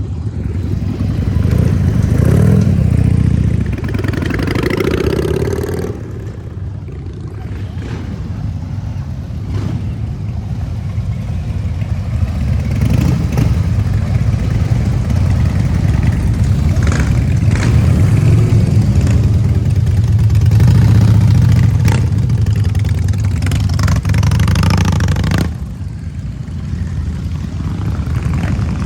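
Harley-Davidson V-twin motorcycle engine running with throttle revs. The pitch rises about four seconds in, and the sound falls off sharply about six seconds in. It builds again into a long loud stretch and drops suddenly near the end.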